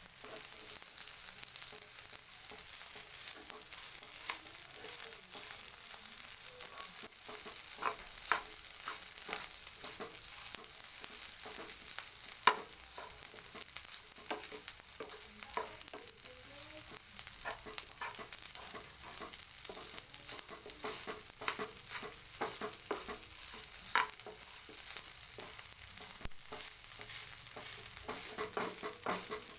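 Rice frying with onion and garlic in a hot pan, being stir-fried: a steady sizzle with frequent short clicks and knocks from the stirring, two sharper knocks about halfway and near the end.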